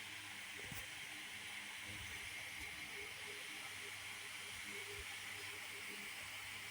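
Steady faint hiss over a faint low hum, with nothing else standing out.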